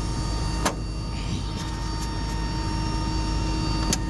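Airbus A330 cargo door closing under power: a click about a second in, then the steady hum of the door's drive running, with a couple of clicks near the end. A constant low drone of ramp noise lies underneath.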